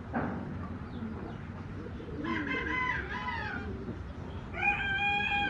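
A rooster crowing twice, each crow a long pitched call that drops at the end, with domestic pigeons cooing low underneath.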